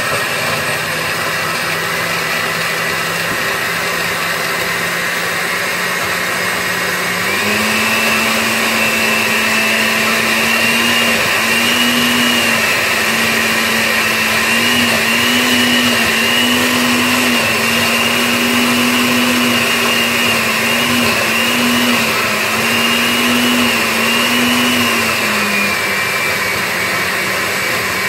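Osterizer countertop blender motor running, grinding a thick turmeric and whole scotch bonnet pepper paste with little water. The motor pitch steps up about seven seconds in, then wavers and dips over and over as the thick mix catches on the blades, and drops again near the end: the blender is struggling with the thick load.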